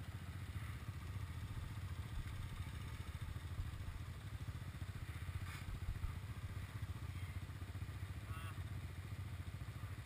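ATV engine idling steadily, a low rumble with no revving.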